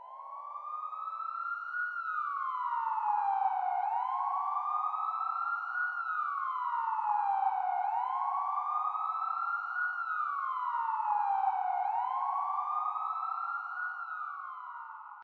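A siren wailing, its pitch rising and falling in slow sweeps of about four seconds each. It starts suddenly and cuts off abruptly.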